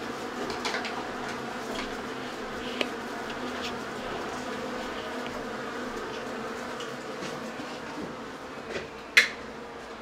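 A large colony of honeybees buzzing on exposed comb: a steady, even hum from thousands of bees. A single sharp click cuts in about nine seconds in.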